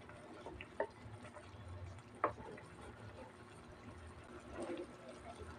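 Soy-based sauce simmering with chicken feet in a pan, bubbling softly with scattered pops, the sharpest about two seconds in.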